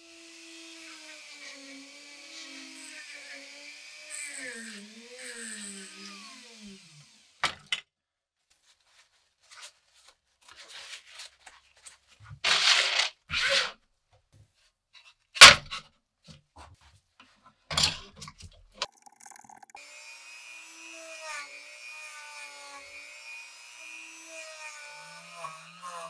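Workshop tool sounds. A small power tool runs with its pitch wavering under load for about the first seven seconds. In the middle come separate knocks and short scrapes, and the power tool runs again near the end.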